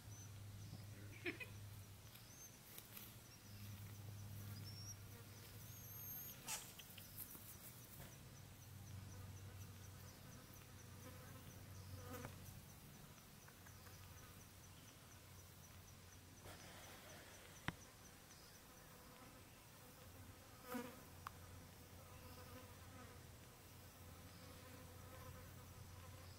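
An insect buzzing faintly and steadily, swelling and fading, with a few faint sharp clicks.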